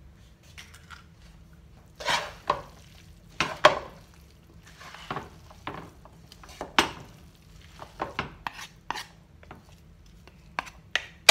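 Wooden spatula and metal fork mixing a wok full of noodle and pork egg-roll filling: irregular clacks and scrapes of the utensils against the pan, with the soft squish of the filling being turned.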